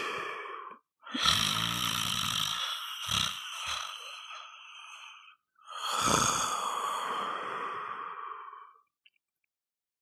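A person snoring. After the tail of one snore fades, a long snore starts with a low rattle and has two short snorts about three seconds in, followed by another long, breathy snore.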